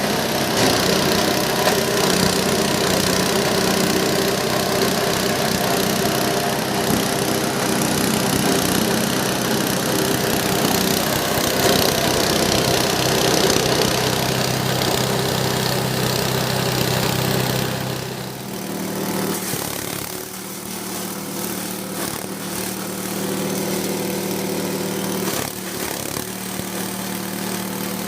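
G-20 multifunction grass chopper and grinder running steadily, its motor and blades giving a loud, dense mechanical din with a steady hum. About 18 seconds in, the sound turns quieter and loses its deepest rumble, then runs on steadily.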